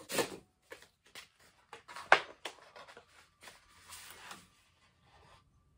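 A USPS mailer envelope and paper sheets being handled and rustled, in a run of short crinkles with one sharp crackle about two seconds in.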